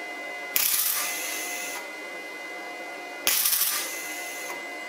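Two short bursts of arc welding from a wire-feed (MIG) welding gun, each about a second long with a crackling, spattering hiss, as a washer is tack-welded onto a bolt.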